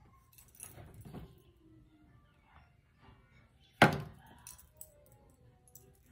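Soft rustling of hands working through hair, then about four seconds in a single sharp clink of a hard object being knocked or set down, the loudest sound, ringing briefly.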